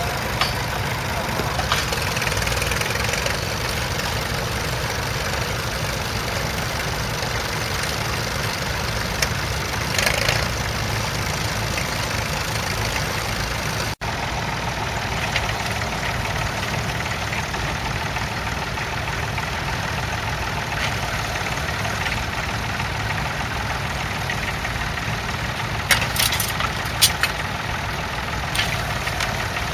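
Vintage crawler tractor engine running steadily at low revs, with a few short clanks about ten seconds in and again near the end.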